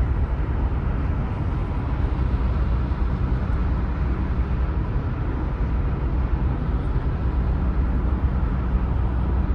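Steady road and engine noise inside a car's cabin while cruising on a highway at about 50 mph, deepest in the low end.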